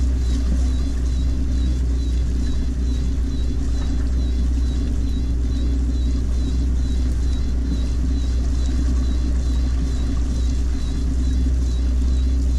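A small boat's engine running steadily at slow speed, a low even drone with no change in pace.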